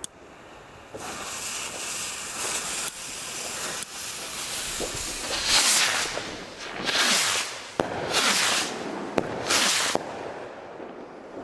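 Nico Starburst Symphony ball-headed skyrockets launched one after another: a hiss of burning fuses and motors, then several loud half-second launch hisses in quick succession from about five seconds in, with a few sharp cracks from the bursts among them.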